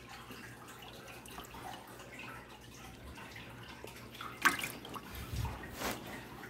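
Water in a bucket splashing as a hand grabs a Geophagus brasiliensis fish: light sloshing, then a sharp splash about four and a half seconds in and more splashing a second later. A faint steady hum runs underneath.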